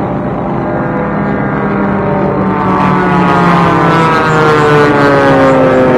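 Continental O-200 piston engines of Formula One racing planes droning as they fly by. From about three seconds in one plane passes close: the sound gets a little louder and the pitch falls as it goes by.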